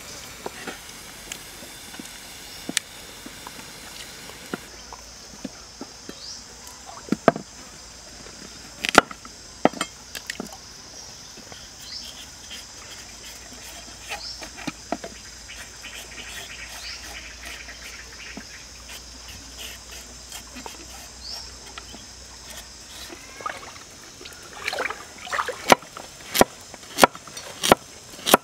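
A cleaver knocks on a wooden cutting board as a carrot is chopped into chunks: a regular series of sharp knocks about every half second near the end. Before that come scattered knife clicks and scrapes as the carrot is peeled, over the steady trickle of a stream and short high chirps.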